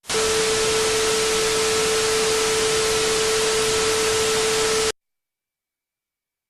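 Loud hiss of static with a steady hum-like tone running through it, cutting off suddenly after about five seconds into silence.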